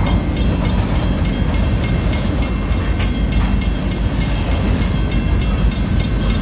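A freight train's cars rolling steadily through a grade crossing, with a continuous rumble of wheels on rail. Over it the crossing bells ring in a fast, even beat of about four to five strikes a second.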